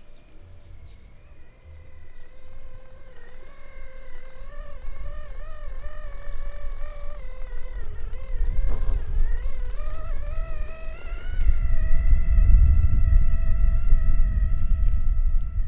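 Electric whine of a 1/10 Vanquish RC rock crawler's Hobbywing Fusion Pro brushless motor and gear drivetrain, its pitch wavering up and down with the throttle as the truck crawls. A low rumble builds under it and becomes the loudest sound from about two-thirds of the way in.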